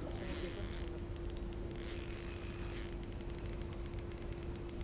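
Spinning reel ticking in quick, even runs as its handle is cranked to wind in line during a fight with a hooked mullet. There are two spells of clicking, the longer one near the end.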